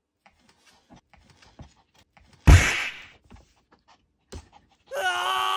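Soft scattered taps of a dog and a cat scuffling on a mat-covered table, with one loud thump about halfway through. A steady tone of several held pitches comes in near the end.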